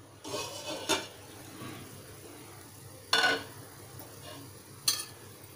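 Glass pan lid with a steel rim being lifted off a steel kadai and set down: a scrape ending in a clack about a second in, a ringing clink about three seconds in, and a short tap near the end.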